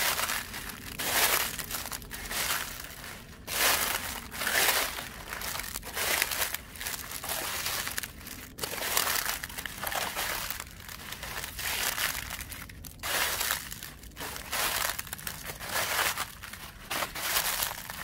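Footsteps crunching through a thick layer of dry fallen leaves, about one step a second.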